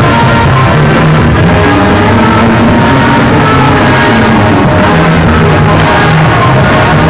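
Loud music playing continuously, with steady pitched instrument lines throughout.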